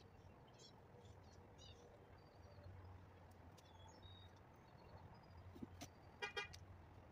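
Quiet outdoor background with faint bird chirps early on. About six seconds in, a car horn gives a brief double toot.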